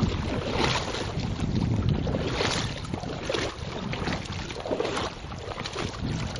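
River water rushing and splashing, with wind buffeting the microphone in uneven gusts.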